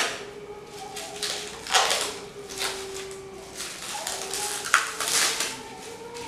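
Plastic wrapping crinkling and tearing in a series of rustling bursts as it is pulled off an air rifle.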